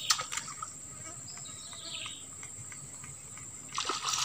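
Insects droning steadily at one high pitch. Near the end, a louder rush of noise as something splashes on the water's surface.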